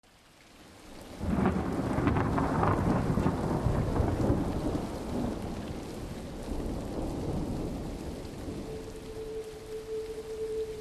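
Thunder rolling over a hiss of rain, fading in at the start and swelling about a second in, then slowly easing. A single steady held tone enters near the end.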